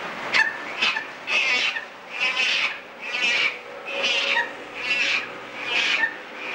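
Baby chimpanzee calling in a regular series of breathy, raspy sounds, a bit more than one a second.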